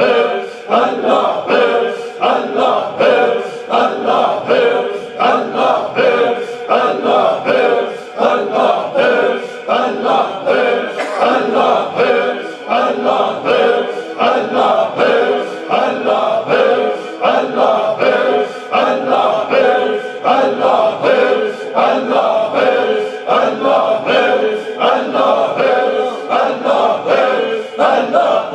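A group of men chanting dhikr together, many voices in unison repeating the same phrase in a steady rhythmic pulse.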